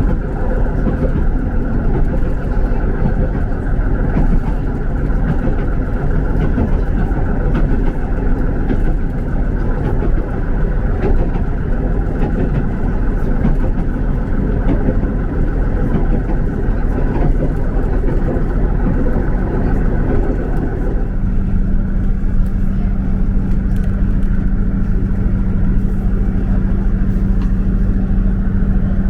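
Steady running noise heard from inside a moving diesel passenger train, a heavy low rumble; about two-thirds of the way through, a steady low engine hum comes in and holds.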